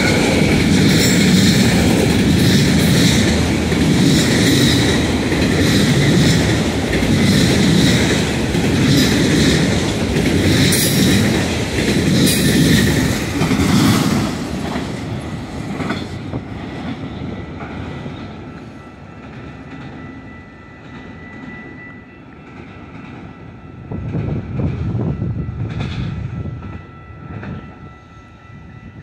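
Freight train of autorack cars passing close by, its wheels clattering over the rail joints with a heavy rumble. About fourteen seconds in, the last car goes by and the sound fades away, leaving a grade-crossing signal ringing steadily, with a brief swell of rumble again around twenty-four seconds in.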